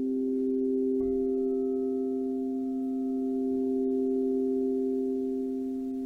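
Singing bowls ringing together in long, steady sustained tones. Another bowl is struck about a second in, adding higher ringing tones over the held low ones.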